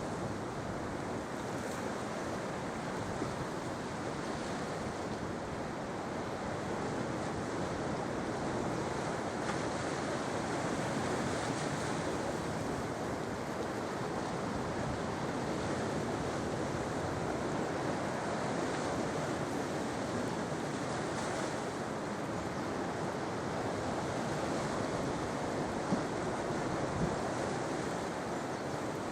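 Sea waves washing onto a shore: a steady, continuous rush of surf.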